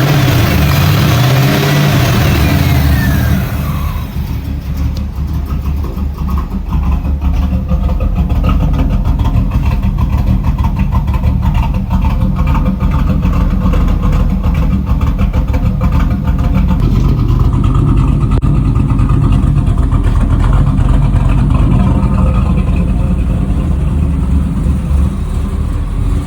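Camaro engine running on its freshly rebuilt Edelbrock carburetor, started for the first time in 13 years: the revs fall away over the first few seconds, then it settles into a steady idle.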